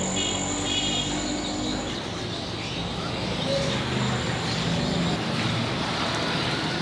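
Busy street noise: a steady hum of traffic, with a few short high chirps about a second in.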